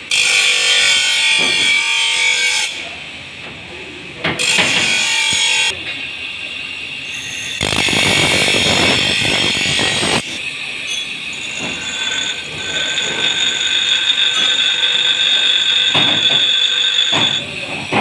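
Loud running workshop machinery, its noise starting and stopping abruptly several times. In the second half it gives way to a steadier stretch with a high whine.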